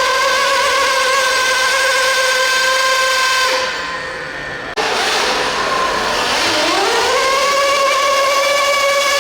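RC pulling vehicle's motor whining steadily under load for a few seconds, then dropping away. After a sudden break, another run's motor whine rises in pitch and holds steady.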